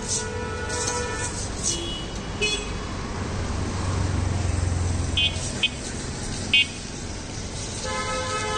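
Busy street traffic: vehicles running past with a low rumble that swells in the middle, and horns honking, with several short toots through the middle and a longer held horn near the end.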